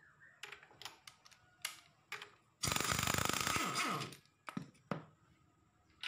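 Air impact wrench running in one burst of about a second and a half, about two and a half seconds in, undoing the nut on a scooter's CVT clutch. Before it come the clinks and knocks of a socket and tools being handled, and a few more clicks follow.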